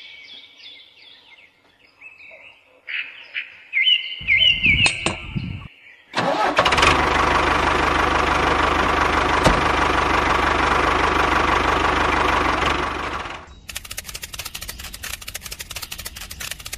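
Birds chirping, then an engine turns over briefly about four seconds in, catches about six seconds in and runs steadily for some seven seconds before cutting off. A fast, even ticking follows near the end.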